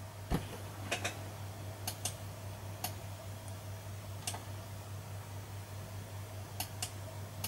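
A computer mouse clicking about nine times, several clicks coming in quick pairs, over a steady low hum.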